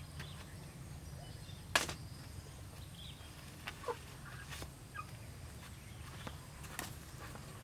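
Two chickens giving a few short squawks, falling in pitch, as they are caught and picked up by the legs, with a sharp knock about two seconds in and a few lighter clicks and knocks.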